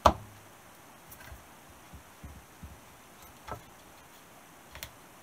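Blend-door flap and hands handling the plastic heater box of a VW Golf Mk2 as the flap is fitted: one sharp knock at the start, then a few faint taps and clicks.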